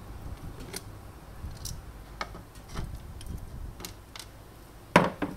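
Small plastic clicks and ticks as the bottom plate of a plastic egg cooker base is unscrewed and worked loose with a screwdriver. About five seconds in comes a loud sharp knock, with a smaller one just after, as a part or the screwdriver is set down on the wooden bench.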